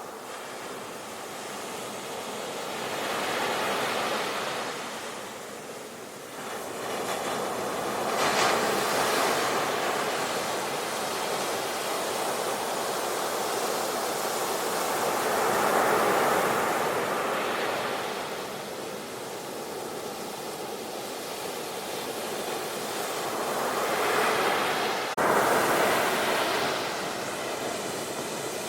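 Ocean waves breaking and washing ashore, the surf rising and falling in long surges several seconds apart. A sharp click sounds near the end.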